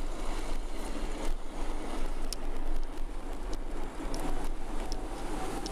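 Car driving slowly on a narrow, rough road, heard from inside the cabin: steady engine and tyre noise with a few faint ticks.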